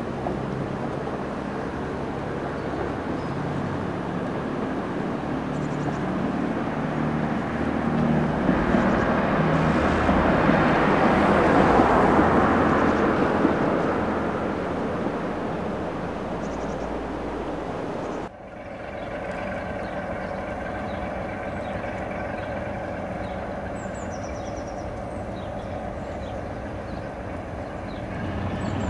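A diesel train passing at a distance, growing louder to a peak about halfway and then fading. After an abrupt cut, a diesel locomotive's engine drones steadily as it approaches, getting louder near the end, with a few faint bird chirps.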